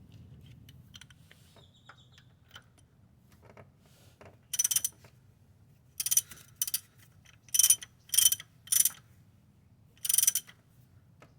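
Short bursts of mechanical ratcheting clatter, eight or so, irregularly spaced, over a faint low hum.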